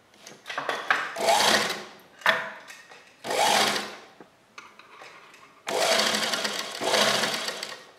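Sewing machine stitching a seam in several short runs, stopping and starting between them; the longest run, under two seconds, comes near the end.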